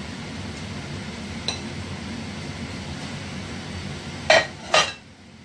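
Kitchen tongs clink sharply twice against a dish, half a second apart, about four seconds in, over a steady low hum that drops away right after.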